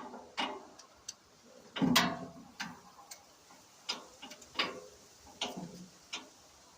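Irregular metallic clicks and knocks of hand tools on metal, with one heavier knock about two seconds in.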